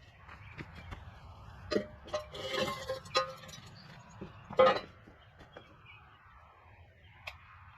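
Garage work noises: scattered knocks and metal clanks, a scraping noise about two seconds in, and one loud ringing clank about four and a half seconds in.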